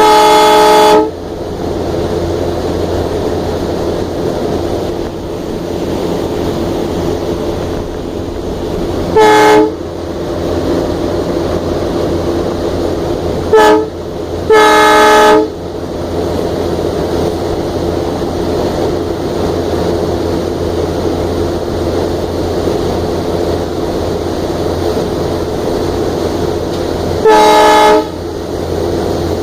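Diesel locomotive running steadily, heard from on board the engine, with its horn sounding five times: a blast of about a second at the start, a short one about nine seconds in, a quick toot followed by a longer blast around fourteen to fifteen seconds in, and another blast near the end.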